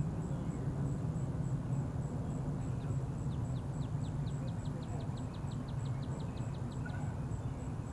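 Steady low outdoor hum, with a bird's rapid trill of quick down-slurred notes, about five a second, from about three seconds in for some four seconds.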